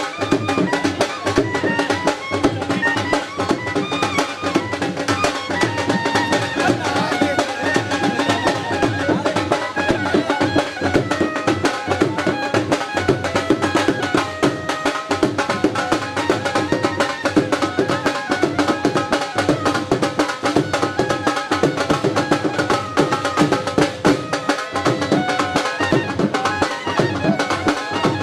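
Dhol drums beating a fast, steady traditional rhythm, with a melody playing over them: live Punjabi wedding music.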